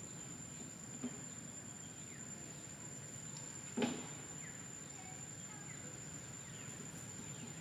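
Insects droning in one steady, high, unbroken tone, with faint scattered bird chirps. A single short knock a little under four seconds in is the loudest sound.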